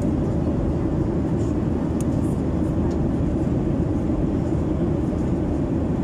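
Airliner cabin noise in flight: a steady, even rush of engine and airflow noise, low in pitch. A faint small click comes about two seconds in.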